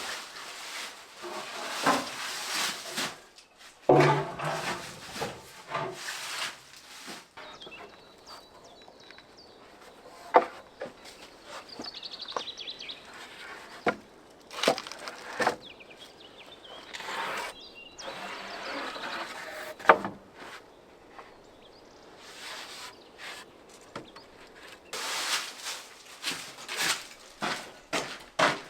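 Wooden boards and objects being handled and set down while clearing out a room: irregular knocks, clatters and scraping, with sharp knocks about 4, 10 and 20 seconds in.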